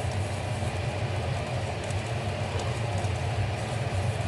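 A steady low mechanical hum with a rumble underneath and a few faint ticks.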